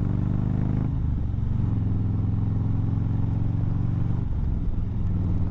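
A Harley-Davidson Low Rider ST's 117 cubic inch Milwaukee-Eight V-twin engine running under way. The engine note climbs, breaks and settles lower about a second in, and changes again after about four seconds, as the rider shifts through the gears.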